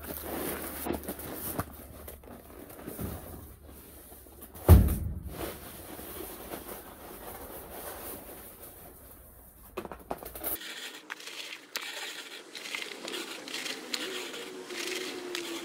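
Crushed cobalt blue glass clinking and crunching in many small clicks as it is tipped from a cardboard box and spread by hand into the table's lake cavity, mostly in the last third. Earlier there is a low hum and one loud thump about five seconds in.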